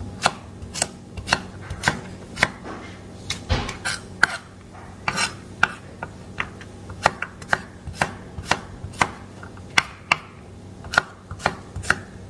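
Chef's knife slicing fresh green beans on a wooden cutting board, each cut ending in a sharp knock of the blade on the board, about two a second in a steady rhythm.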